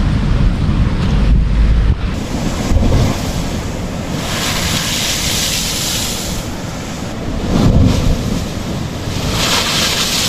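Sea waves surging into a rocky blowhole cleft, with two rushing washes of water, one about four seconds in and one near the end. Wind buffets the microphone, mostly in the first couple of seconds.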